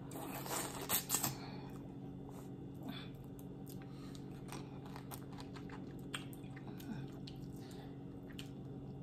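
Close-up eating sounds of boiled crawfish: soft chewing, sucking and small wet clicks of shell. There are a few louder smacks about a second in, then only scattered faint clicks over a steady low hum.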